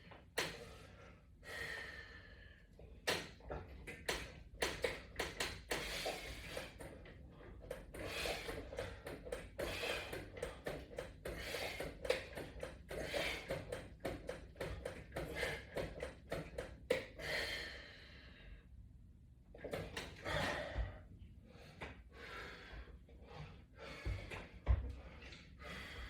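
Irregular clicks, knocks and rustling of exercise gear being handled and set up in a small room.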